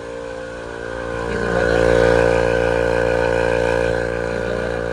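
Air pump for inflating tyres running steadily with an even motor hum, growing louder about a second in and then holding.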